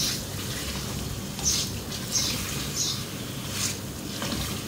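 Wooden slotted spatula stirring chicken pieces in oil around an aluminium karahi, with short scraping strokes against the metal about once a second, over a steady low background.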